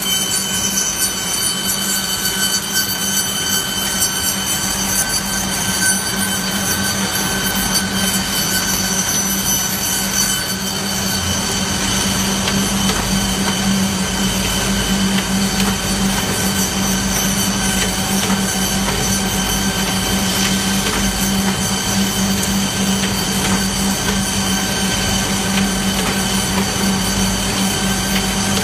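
Bamboo strip colour-sorting machine running steadily: a constant low hum with a few high, steady whining tones over continuous light rattling and clicking.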